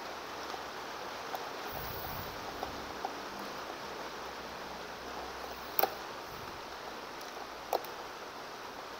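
Steady background hiss with a few faint clicks, then two sharper clicks about six and eight seconds in, from hands working the case parts and screws during assembly.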